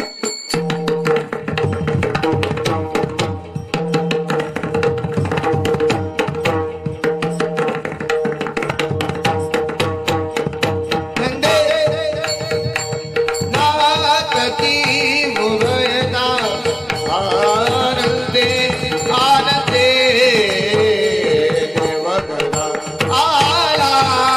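Varkari bhajan music: a hand drum playing fast strokes over a steady held drone note, with singing voices coming in about halfway through.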